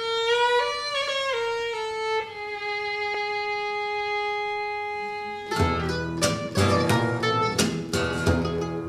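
A violin opens alone, playing a few notes and then one long held note. About five and a half seconds in, the acoustic guitar, mandolin and cello join with rhythmic strummed and plucked chords.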